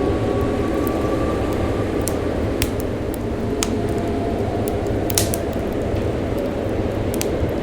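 Wood fire crackling with irregular sharp pops, a cluster of louder ones about five seconds in, over a steady low rush of wind.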